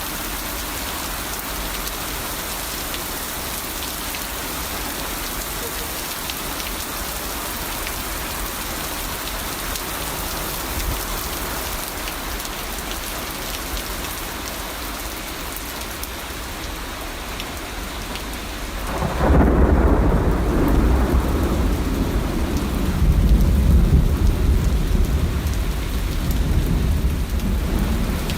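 Steady heavy rain, then about two-thirds of the way through a sudden loud rumble of thunder that rolls on, swelling again and lasting to the end, over the rain.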